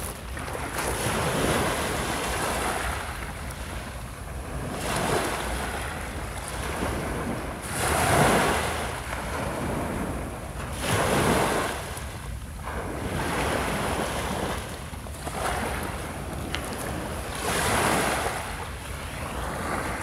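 Small waves breaking and washing up a pebble beach. The surf surges and falls back every few seconds.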